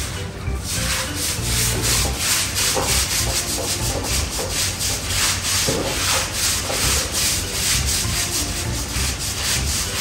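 Stiff deck brush scrubbing a wet floor in quick, repeated back-and-forth strokes.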